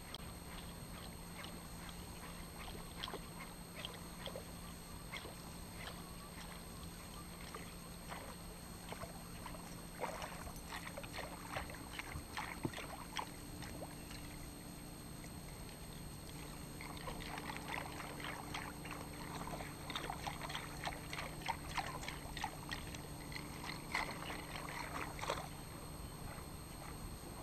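Small waves lapping and splashing against an aluminium fishing boat's hull over a steady low hum. Clusters of light splashing and ticking come and go, busiest in the second half.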